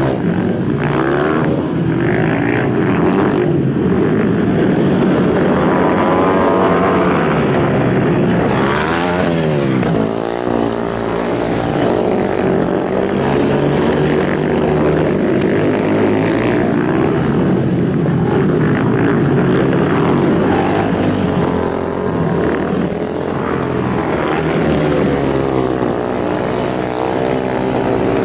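Racing motorcycle engines running hard at high revs, the pitch repeatedly climbing and dropping as they rev, with a sharp dip and rise in pitch about nine seconds in.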